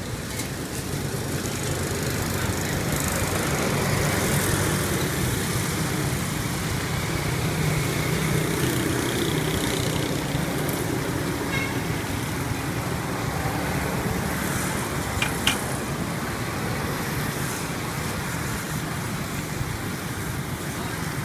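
Steady street traffic noise with a low engine hum, and a couple of sharp metallic clicks about fifteen seconds in.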